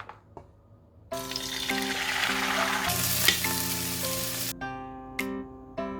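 Food sizzling as it fries in a pan, under light background music with a steady melody. The sizzle starts about a second in and cuts out abruptly a little past the middle, leaving the music alone.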